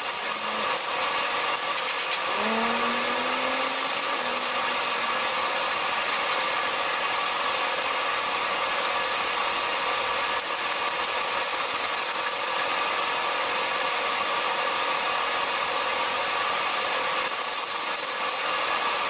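Steady motor drone with a few fixed hum tones, with three bursts of high spraying hiss about 4 seconds in, from about 10 to 12 seconds, and near the end, as paint is sprayed onto the masked wheel arch.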